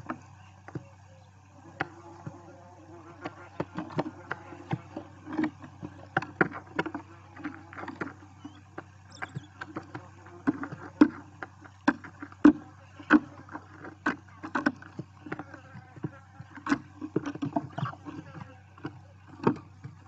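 Barn owl chicks shuffling and scrabbling in a wooden nest cavity: a busy run of sharp knocks and scratches that picks up after about three seconds, over a steady low electrical hum from the nest-cam microphone.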